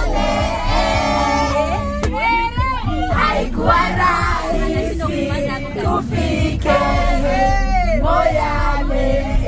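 A group of people singing and shouting together in lively, swooping voices, over the steady low rumble of the moving bus.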